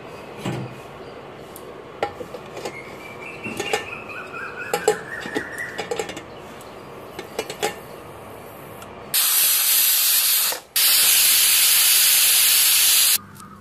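Metal clinks and knocks with a rising squeak as a pressure cooker lid is fitted, then the Prestige Deluxe pressure cooker whistling twice: two loud blasts of venting steam, about one and a half and two and a half seconds long, the sign that the cooker has reached full pressure.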